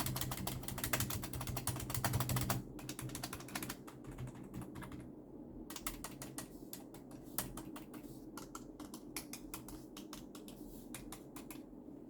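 Logitech K120 rubber-dome keyboard being typed on: a fast, dense run of keystrokes for about the first two and a half seconds, then slower, scattered key presses.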